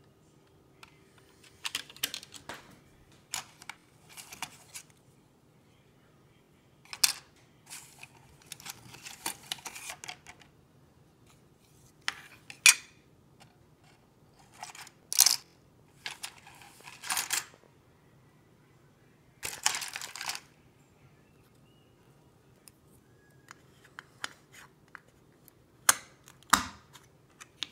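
Plastic model-kit parts being handled in a cardboard box: scattered clicks, rattles and rustles in short bursts, with a sharp knock near the end.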